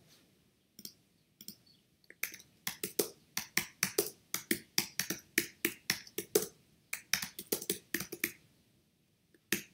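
Typing on a computer keyboard: a steady run of keystrokes at about four a second, pausing briefly before a few more near the end.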